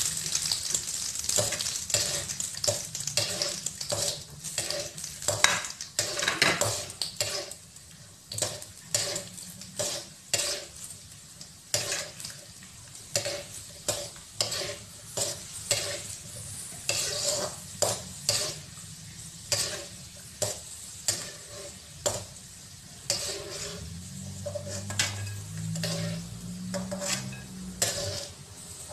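Cashew nuts sizzling as they fry in ghee in a wok, the sizzle loudest in the first several seconds. A metal ladle stirs them, scraping and clinking against the pan about once or twice a second.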